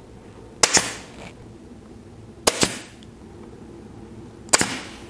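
Porter Cable 22-gauge pneumatic fine-wire upholstery stapler firing three times, about two seconds apart, driving 3/8-inch staples through leather into a wooden seat frame. Each shot is a sharp snap with a short hiss after it.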